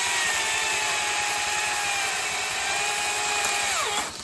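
Battery-powered electric chainsaw running and cutting through a tree branch: a steady high motor whine with the rasp of the chain, sagging slightly in pitch partway through, then winding down quickly and stopping near the end.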